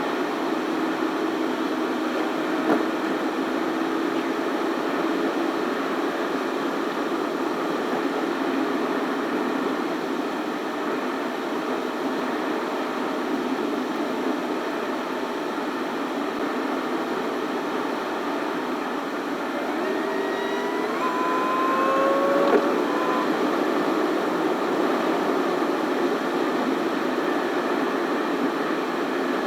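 Corvette ZR1 driving at speed: steady tyre and wind noise with the engine running underneath. About two-thirds of the way through, a few short tones climb in pitch.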